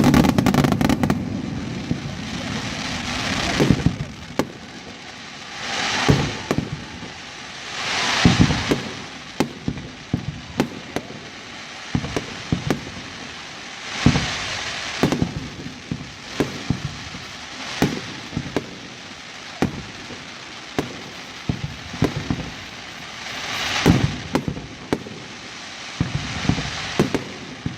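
Aerial fireworks bursting: a loud bang right at the start, then many sharp reports and swells of crackle that rise and die away every few seconds.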